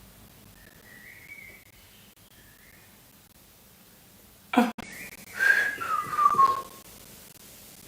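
A person whistling: a soft, wavering whistled phrase, then a sharp click about halfway through, followed by a louder whistle that slides down in pitch.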